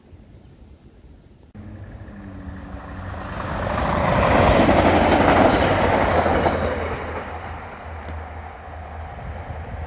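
Class 142 Pacer diesel railbus passing at speed: its underfloor diesel engine running under the wheel-on-rail noise. The sound starts abruptly about a second and a half in, swells to its loudest about five seconds in, then fades as the train moves away.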